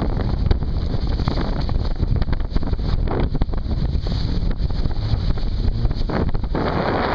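Wind buffeting the microphone over the steady noise of a jet ski running on rough sea, with water rushing; no distinct engine note stands out.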